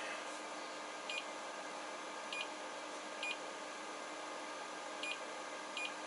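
Five short, irregularly spaced electronic beeps from a fridge's digital control panel as its buttons are pressed to set the temperature, over a steady background hum.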